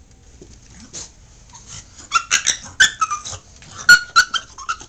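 Pug giving high-pitched, squeaky whining cries at a vacuum cleaner, in two bursts about two and four seconds in.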